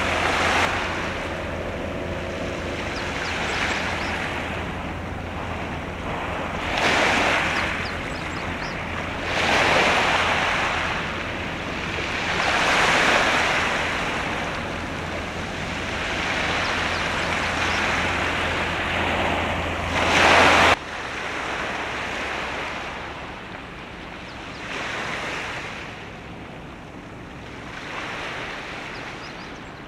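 Waves washing in swells every few seconds, with wind buffeting the microphone and a steady low hum. The hum cuts off abruptly about two-thirds of the way through.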